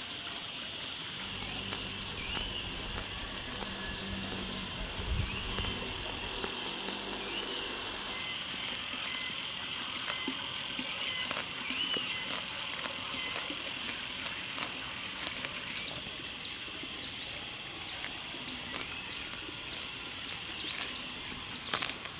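Rural outdoor ambience: a steady high drone from insects or frogs, with short chirps every second or two and scattered light clicks and rustles. A low hum runs underneath for the first few seconds.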